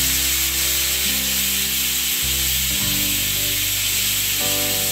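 Steam hissing steadily out around the weight valve of an Impex stainless steel pressure cooker under pressure, over background music.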